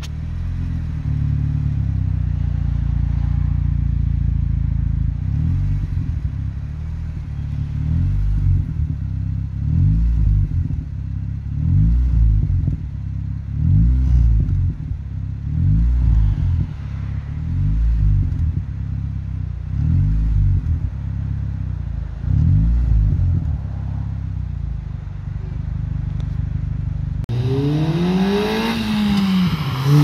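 Honda Fit's 1.5-litre inline-four through a Spoon N1 cat-back exhaust and Spoon B-pipe, idling, then blipped lightly about nine times, roughly every two seconds, dropping back to idle each time, with slight exhaust pops on the light revs. Near the end the car pulls away and its engine note rises and falls.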